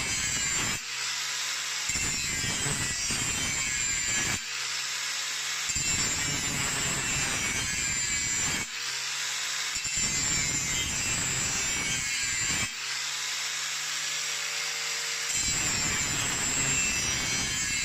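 Angle grinder with a grinding wheel sharpening the cutting edge of a steel lawn mower blade. The wheel is worked along the edge in passes of two to three seconds, with brief breaks about four times where the disc lifts off and only the motor's whine is heard.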